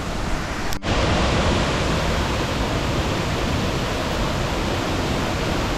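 Steady rushing roar of falling water, even and unbroken. It drops out for an instant just under a second in, then carries on slightly louder.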